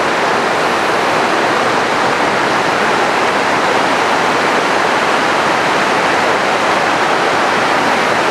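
Swollen, muddy mountain river in flood, its turbulent water rushing over rocks in a loud, steady roar.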